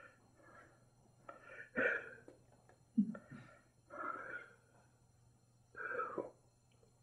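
A person's short breathy vocal sounds, without words, in four or five bursts spread a second or two apart.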